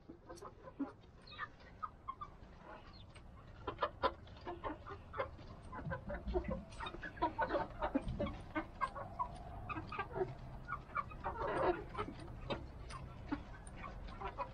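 Young Rhode Island Red chickens clucking as they feed, many short calls in quick succession, growing louder, with one louder, longer call near the end.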